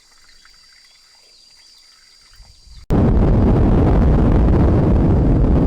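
Faint, steady high trilling of insects over a quiet background, then an abrupt cut about three seconds in to a loud, even rushing roar, heaviest in the low end.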